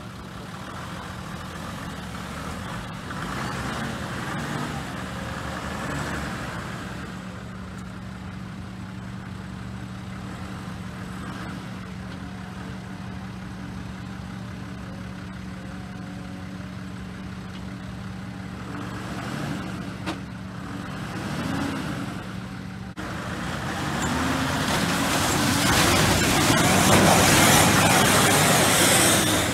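Toyota Land Cruiser 80 series' 1HD-T straight-six turbo-diesel running steadily. In the last few seconds it gets louder and works harder as the truck pushes through mud, with tyres churning and mud splashing.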